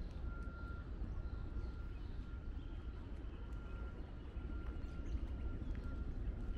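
Outdoor park ambience: a steady low rumble, with a thin high-pitched peep repeating one to two times a second.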